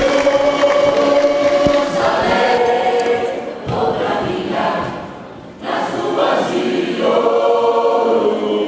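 Choir singing long held chords, fading about five seconds in and coming back in with a new phrase.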